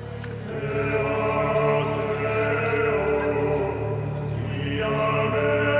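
Background music: a choir chanting in long held notes.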